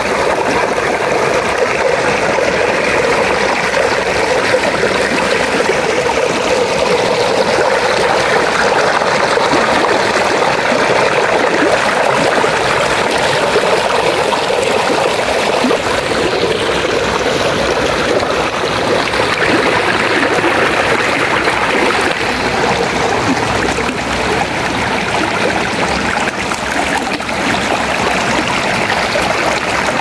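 Shallow mountain stream running over granite boulders in small cascades, heard close to the water as a steady, unbroken splashing.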